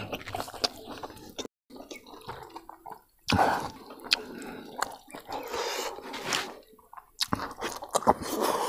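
Close-up wet eating sounds: lip-smacking, squishing and clicking of a person chewing pork trotter and rice, with a louder wet burst about three seconds in.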